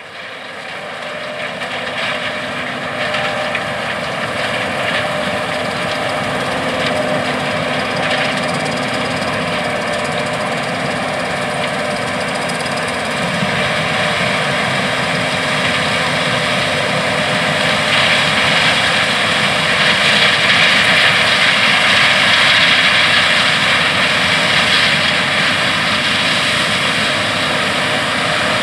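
John Deere S780 combine running in the corn field, a steady loud machine drone of engine and threshing machinery with several steady tones. It fades in at the start and grows a little louder and hissier past the middle.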